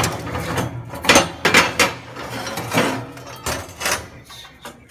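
Cut steel plate clanking and scraping against the steel slats of a CNC plasma table's bed as it is worked loose and lifted out. It comes as a run of irregular clanks and scrapes, busiest in the first two seconds.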